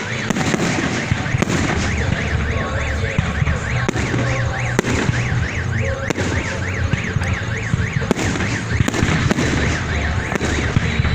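Fireworks going off with scattered bangs and crackles, while a car alarm warbles steadily up and down, about three or four cycles a second.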